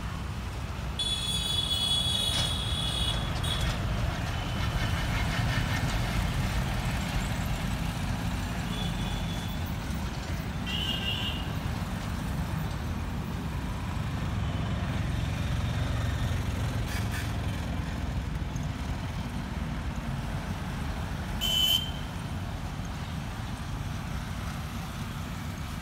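Road traffic running steadily with a low rumble, with vehicle horns sounding: a longer horn blast about a second in, a short one around eleven seconds, and a brief, loudest toot a few seconds before the end.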